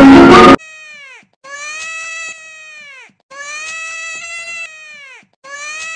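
Loud music cuts off abruptly about half a second in. Then an ambulance siren sounds four long, meow-like wailing notes with short gaps between them, each gliding up at the start, holding one pitch and sliding down at the end.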